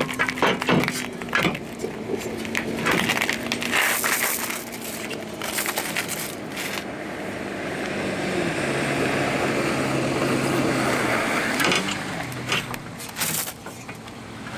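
Gravel crunching and shifting under a person kneeling and sitting down, with scattered knocks and scrapes of hand work under a pickup's front bumper.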